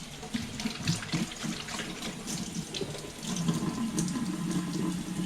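Kitchen tap running into a sink while hands are washed under it, with irregular small splashes as the hands move through the stream.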